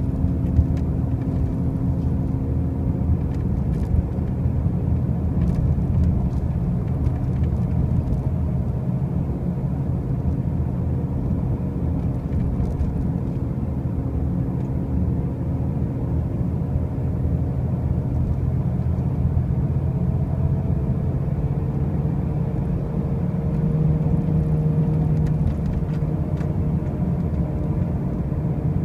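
2005 Pontiac Grand Prix on the move, giving a steady low rumbling drone with a faint hum that drifts slightly in pitch, a little louder about 24 seconds in. This is the loud driving noise the owner cannot place: the car already has new wheel bearings and new tires.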